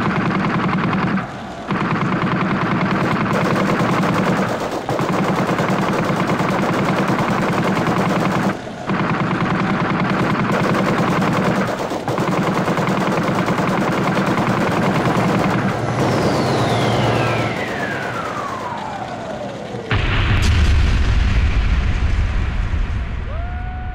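Loud electronic sound-design soundtrack of an architectural projection-mapping show: a dense noisy texture broken by a few short gaps. Then a pitch slides steadily down over about four seconds, and a deep boom near the end slowly fades away.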